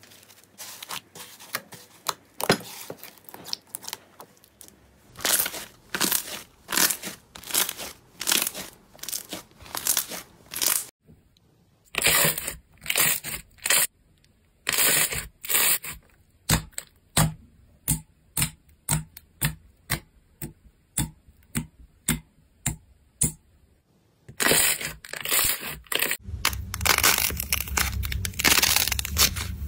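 Slime being stretched, pulled and pressed by hand, giving a rhythmic run of sticky pops and crackles, about two a second. It breaks off briefly about a third of the way in, and near the end turns into a denser, continuous squishing as a thick blue cloud-type slime is squeezed.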